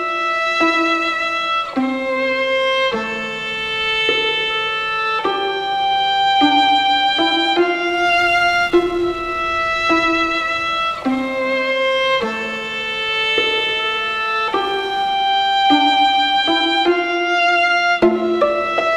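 Classical string music led by a violin playing long held notes, moving to a new pitch about every second.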